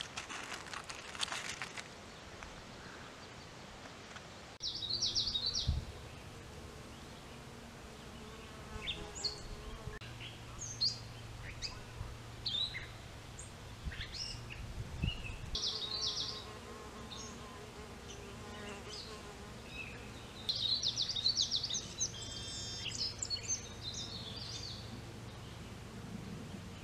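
Solitary bees buzzing as they fly around their nesting house, a low hum that wavers in pitch as they pass. Short bird chirps sound over it now and then.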